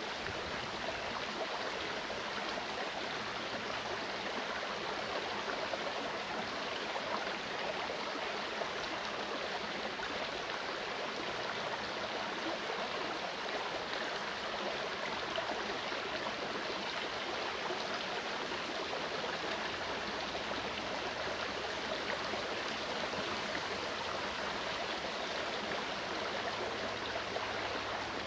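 A clear mountain stream running over rocks: a steady, even rush of flowing water with gurgling.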